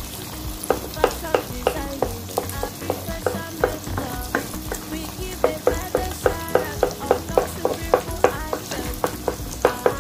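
Eggs, onion and garlic sizzling in butter in a frying pan, while a wooden spoon stirs and knocks against the pan in a rapid series of short taps, about three a second, starting about a second in.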